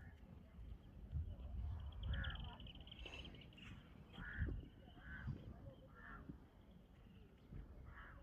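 Birds calling: a short call repeated every second or so, with a brief rapid trill about two seconds in, over a low irregular rumble.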